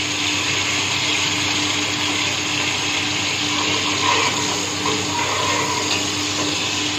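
Chopped onions frying in oil in an aluminium pressure cooker, a steady sizzling hiss, with a steady low hum underneath.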